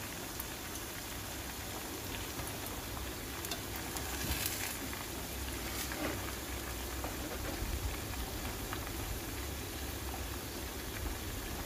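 Eggs sizzling in oil in a nonstick frying pan, a steady crackling hiss, with a few light clicks from a metal spatula in the pan.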